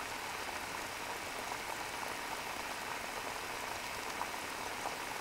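Pot of water just reaching the boil over a BatchStovez BS 2.0 FE aluminum-bottle alcohol stove burning methanol from its jets: a steady bubbling hiss.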